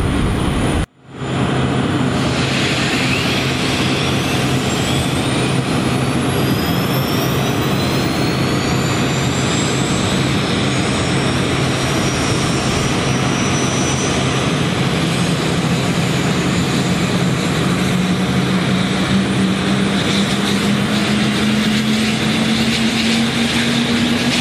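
Airbus A400M's Europrop TP400-D6 turboprop engines starting up: a steady loud drone with a high turbine whine rising in pitch over several seconds, then a low hum that climbs slowly as another engine spools up. The sound briefly cuts out about a second in.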